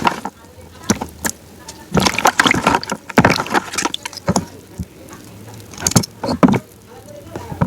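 Close-miked eating of crunchy ice cream: irregular bursts of crunching bites and chewing with wet mouth sounds, several times over.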